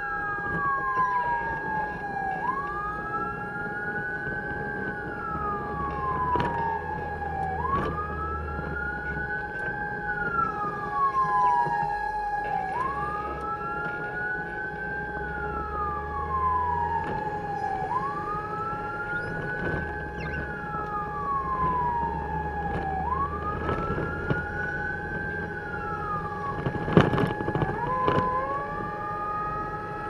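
Fire truck siren on wail, rising and falling about every five seconds over a low engine rumble, with a steady tone held beneath the sweep. A little before the end, a couple of sharp knocks, and the siren starts a new rising sweep.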